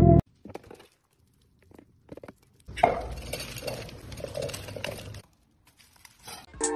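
A duck and a cat eating dry kibble from one bowl: a stretch of about two seconds of the duck's bill rattling through the food and pellets clinking against the bowl, starting with a sharp click.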